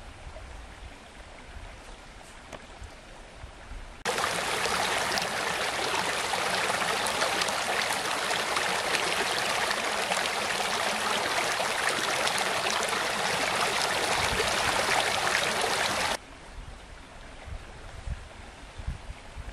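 Shallow stream rushing and splashing over stones, a loud, even rush. It cuts in suddenly about four seconds in and cuts off about three seconds before the end, with much softer sound and a few low knocks around it.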